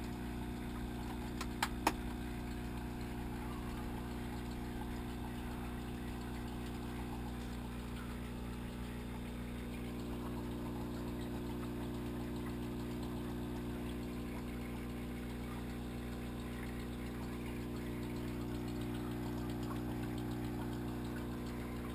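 Aquarium pump humming steadily, a low mains-type hum with several fixed tones. Two sharp clicks come just under two seconds in.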